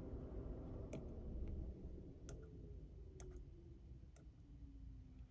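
Faint hum of the vehicle's electric radiator cooling fan winding down after being switched off from high speed, its pitch falling slowly. There are a few light clicks about a second apart.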